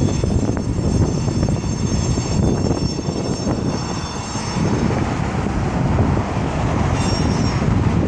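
Loud, steady rumble of nearby traffic, with many small knocks through it. A thin high squeal sounds at the start and again briefly near the end.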